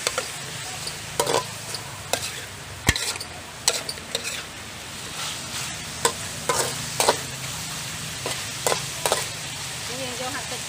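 Diced pork belly sizzling in hot fat in a metal wok. A metal spatula stirs and turns it, scraping and clinking against the pan at irregular intervals.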